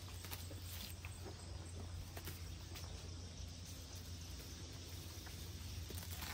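Faint outdoor background noise: a steady low rumble under a soft hiss, with a few faint clicks.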